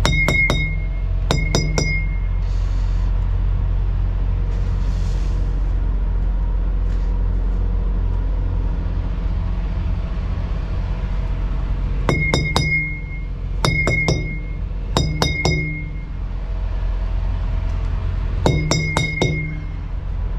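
Tire thumper striking trailer tires to check their inflation, in quick groups of two or three hits with a short metallic ring. There are pauses of a second to several seconds between groups, over a steady low drone.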